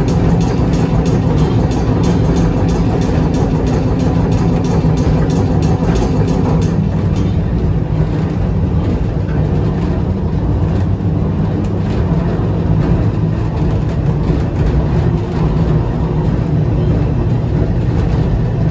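Vintage A-type electric tram running, heard from inside the car: a steady, loud low rumble of wheels and motors.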